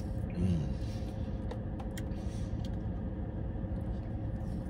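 A few light clicks of a plastic spoon against a plastic dessert cup, over the steady low hum of a car's cabin. A short hummed "mm" comes about half a second in.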